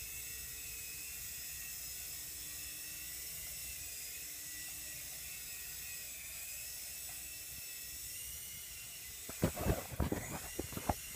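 Blade CX Scout coaxial micro RC helicopter's small electric motors and rotors whining steadily while it hovers. About nine seconds in, a quick run of knocks and clatters as it hits something and comes down, its whine sagging.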